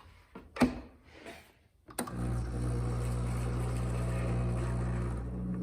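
A short knock about half a second in. About two seconds in, the OXX Coffeeboxx single-serve coffee maker starts up and runs with a steady low mechanical hum as it begins its cycle.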